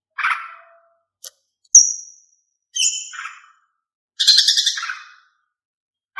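Female green leafbird (cucak ijo) calling: a series of short, sharp chirps and whistled calls, roughly one a second with silent gaps between, the longest and buzziest a little past four seconds in.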